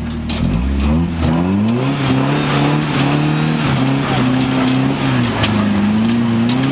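Off-road truck engine revving up about half a second in and held at high revs under load while climbing rock, with a few sharp knocks and clicks scattered through it.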